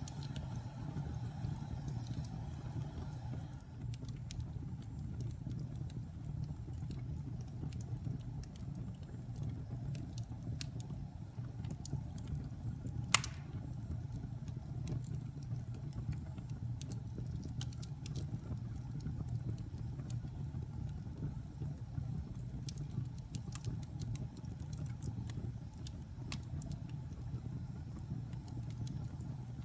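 Wood fire burning with a steady low rumble and scattered sharp crackles, and one loud pop about halfway through.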